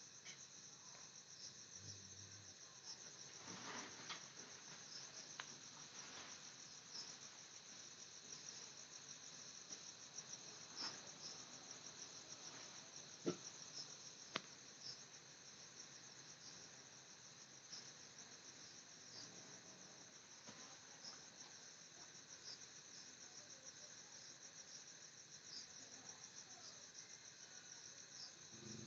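Faint, steady chirping of insects, a high, rapidly pulsing trill that never stops. A couple of sharp clicks come about halfway through.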